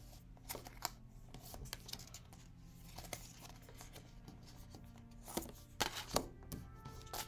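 Oracle cards being handled and dealt onto a wooden table: scattered soft snaps and slides of cards, with a few sharper taps as cards are laid down about five to six seconds in. Faint soft background music underneath.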